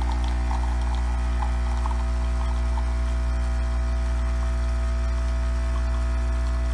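Nespresso Creatista Plus pump buzzing steadily as it brews coffee from a capsule: a loud, low, unbroken hum, really loud for a coffee machine. A few faint crackles sound over it in the first few seconds.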